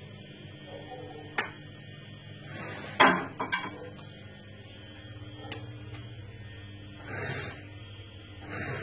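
Kitchen clatter as food is served from a frying pan: a few sharp taps and scrapes of a utensil against the metal pan, with one loud clang about three seconds in, over a steady low hum.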